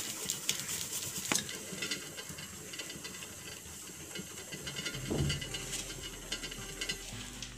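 White chocolate scraped across a metal box grater: a rapid, scratchy rasping that stops about a second and a half in, leaving a low steady hiss.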